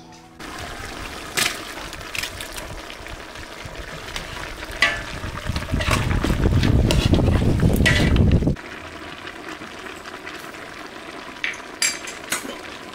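Squid and meat sizzling in a large aluminium pot as a long metal ladle stirs them, the ladle clinking against the pot several times. A louder deep rumble runs through the middle of the stretch and stops suddenly about two-thirds of the way through.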